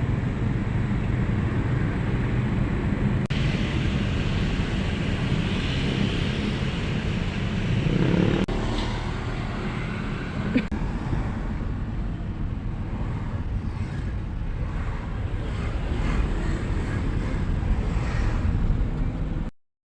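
Steady engine and road rumble of a moving vehicle, heard from on board during a ride-hail trip, with a single sharp click about halfway through.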